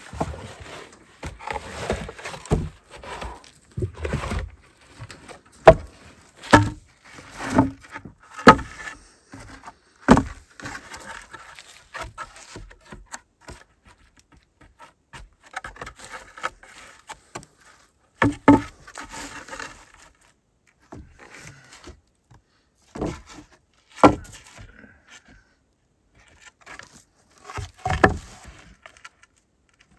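Rough-sawn wooden boards knocking and clattering as they are set down and laid side by side, with wood scraping on wood and sand between the knocks. The knocks come at irregular intervals, with clusters in the first ten seconds and a few loud single knocks later.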